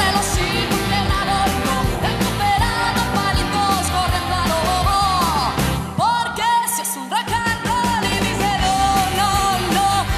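Pop-rock song with a woman singing over an electric guitar and band. The band's low end drops out for about a second just past the middle, leaving the voice, then comes back in.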